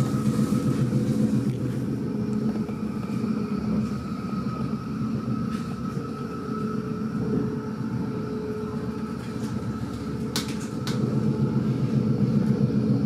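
Inside an S-Bahn electric train running along the line: a steady rumble of wheels on rails with a faint, steady high tone above it. A couple of sharp clicks come about ten seconds in, and the rumble grows a little louder near the end.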